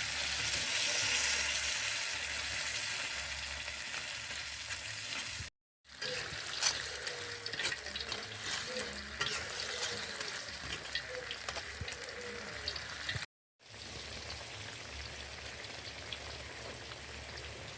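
Crab and spice paste sizzling in a pan, with a spatula clicking and scraping as the mixture is stirred. The sizzle cuts off abruptly twice, about five and a half seconds in and again near thirteen seconds.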